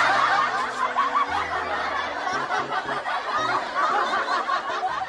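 Canned laugh track: a crowd chuckling and snickering together, starting abruptly and fading slowly, with a few low music notes underneath.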